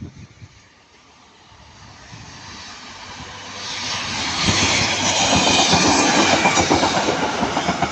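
Passenger train passing close by, its wheels clicking rapidly over the rail joints. It builds from about a second in to a loud peak in the second half, then begins to ease.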